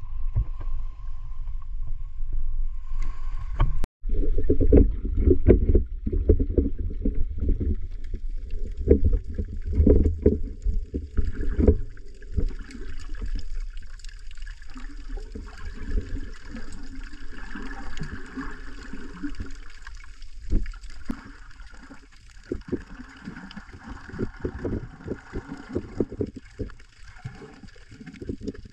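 Underwater sound from a camera below the surface: a muffled low rumble of moving water, full of irregular crackles, clicks and bubbling. It follows a few seconds of low rumble at the water's edge that cuts off abruptly about four seconds in.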